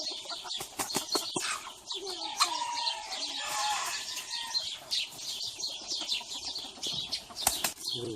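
Birds chirping in quick short high notes, mixed with scattered sharp clicks or flaps, in a poultry setting.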